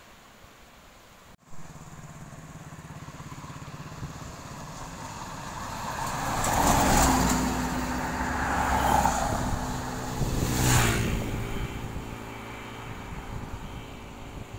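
Yutong ZK6858H9 bus approaching along the road and passing close by. Engine and tyre noise build from about a second and a half in, are loudest between about seven and eleven seconds, then fade.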